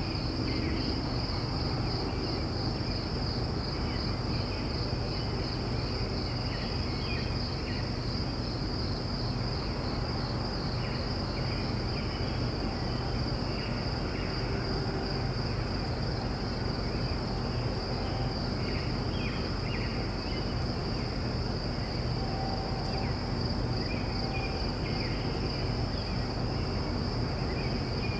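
Distant crickets trilling steadily and high-pitched throughout, with birds chirping in scattered bursts over a low, steady background rumble.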